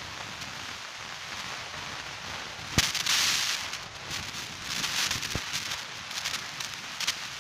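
Handling noise from a phone being moved about: a sharp knock about three seconds in, then a crackling rustle of clothing brushing the microphone, with another click a couple of seconds later. Under it runs the steady hiss of an airliner cabin's air.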